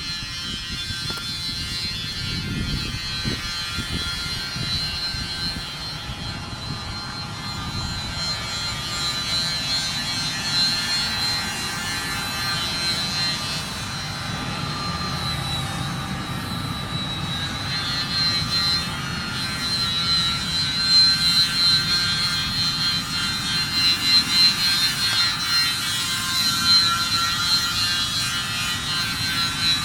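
Machinery running: a steady high-pitched whine over a low rumble, growing louder and more uneven in the second half.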